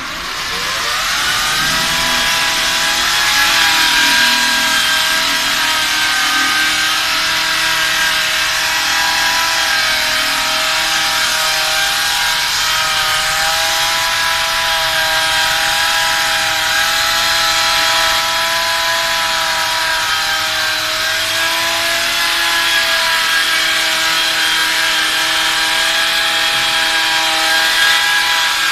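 Electric core drill with a diamond core bit starting up with a rising whine, then running steadily and cutting through a wall, its motor whine wavering slightly over a grinding hiss.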